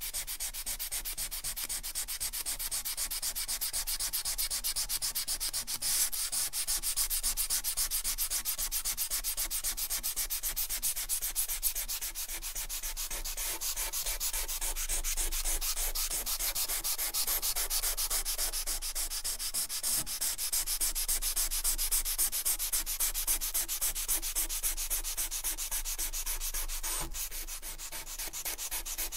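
Lump of potato charcoal rubbed rapidly back and forth across smooth 220 g/m² paper: a steady scratching made of many quick strokes, easing slightly near the end.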